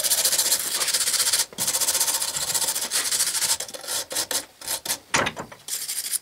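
Hand wire brush scrubbing scale off a freshly case-hardened, knurled mild-steel vise-jaw sample clamped in a vise: rapid back-and-forth scratching with a brief pause about one and a half seconds in, then slower separate strokes in the second half, stopping suddenly at the end.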